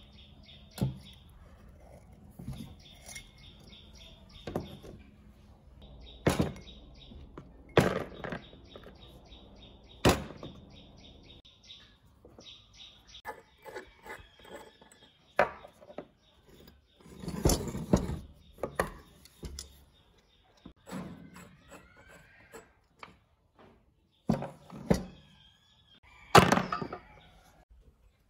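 Knocks and clunks of a rusty metal lamp base and its glass globe being handled and set down during disassembly, about a dozen sharp strikes at irregular intervals, the loudest near the end. Birds chirp in the background through the first half.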